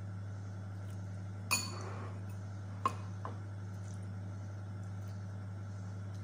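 Metal spoon and fork clinking against a plate while eating: three clinks, the first and loudest about one and a half seconds in with a short ring, then two lighter ones over a second later. A steady low hum runs underneath.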